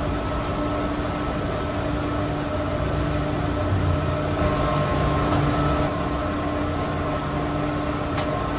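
Steady machinery drone of a mechanical plant room, with a constant low hum and a faint higher whine.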